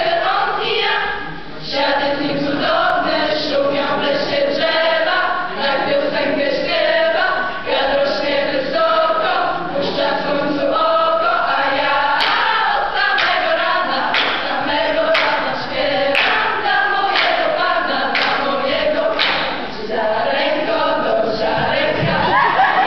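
Youth choir singing together, with hand claps keeping the beat through much of the song.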